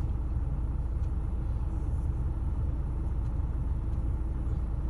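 A steady low rumble with no change, and a few faint clicks over it.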